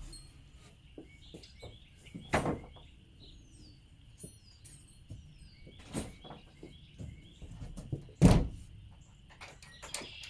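Birds chirping in the background, with a few short falling calls about three seconds in. Three sharp thumps break in, the loudest near the end.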